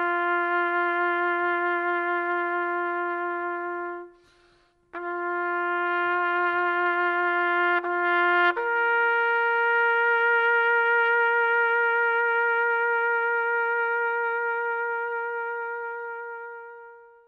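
Background music of long held single notes, one pitch at a time. It breaks off briefly about four seconds in, steps up to a higher note about eight and a half seconds in, and fades out near the end.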